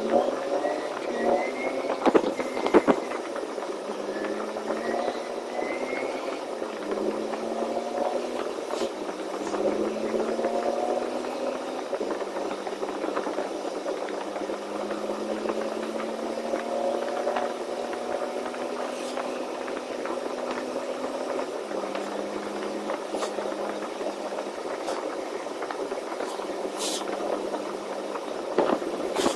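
Semi-truck diesel engine heard from inside the cab, pulling up through the gears: its pitch rises and drops back with each upshift, then holds steady at cruising speed. A couple of sharp knocks sound about two to three seconds in.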